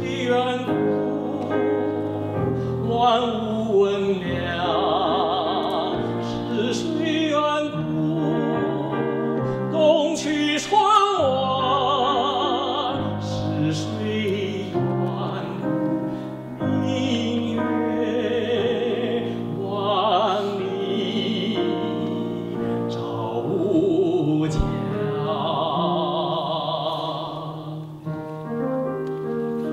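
A male classical singer sings a Chinese art song with operatic vibrato, accompanied by piano and a small chamber ensemble of violin, cello and clarinet.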